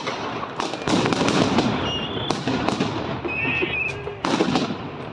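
Blank gunfire in a staged battle: an irregular string of sharp rifle shots, each trailing off in an echo.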